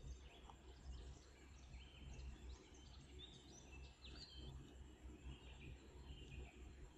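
Near silence: faint room tone with a low hum and scattered faint high chirps.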